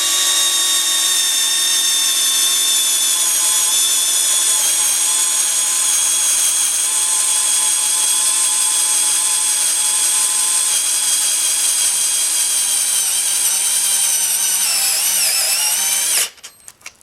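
Cordless screwdriver motor running steadily while driving a self-tapping screw into doubled thin aluminium sheet. Its whine sinks slightly over time and wavers near the end as the screw meets resistance, then cuts off suddenly.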